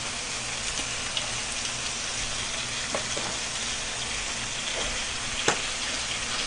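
Pork belly slices sizzling steadily on a hot grill plate as they are turned with metal tongs. A few light clicks come from the tongs and scissors, the sharpest about five and a half seconds in.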